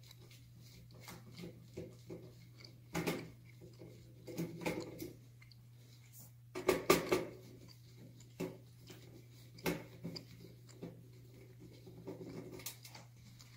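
Gloved hands handling a metal shower panel's back housing and cover with a screwdriver: scattered knocks, clicks and clatter, the loudest cluster about seven seconds in, over a steady low hum.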